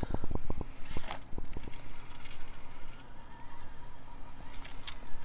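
SCX24 micro RC crawler with a prototype LGRP brushless motor creeping over rocks: a quick run of ticks that slows and stops within the first couple of seconds, then a faint steady motor whine. A sharp click comes about a second in and another near the end.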